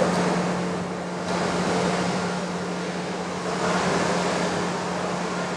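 OD (cylindrical) grinder running with its wheel spinning: a steady motor hum under a broad whooshing noise that swells slightly a few times.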